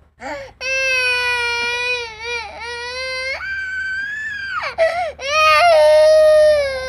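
A young boy crying: a long, held wail lasting about three seconds, rising into a higher cry, a few short sobbing breaths, then another long, loud wail.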